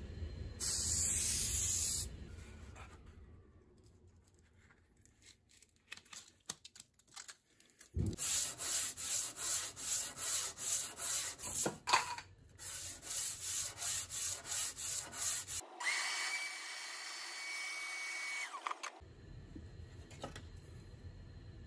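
A short hiss of aerosol spray adhesive, then a cast-iron hand plane's sole rubbed back and forth on sandpaper glued to a granite slab, about two to three strokes a second, to flatten the sole. Partway through the strokes, a steady high-pitched tone sounds for about three seconds.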